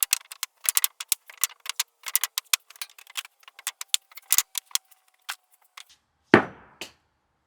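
A rapid, irregular run of sharp clicks and ticks, with one heavier knock about six seconds in.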